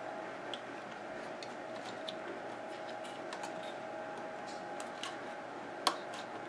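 Faint small clicks and ticks of fingers fitting a rubber drive belt over the plastic pulleys of a Panasonic Easa-Phone KX-T1740 answering machine's tape mechanism, with one sharper click about six seconds in. A steady faint hum runs underneath.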